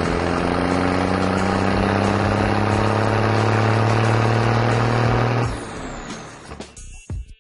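Heavy vehicle engine sound effect running steadily at a constant pitch, then fading out about five and a half seconds in.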